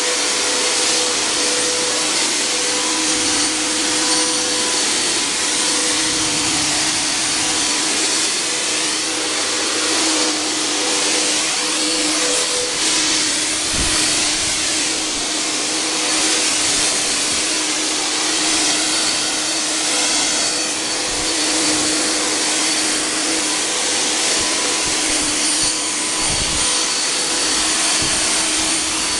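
Handheld 'Volkodav' cold fog (ULV) generator running steadily, its blower motor giving an even whine and rush as it blows out insecticide fog.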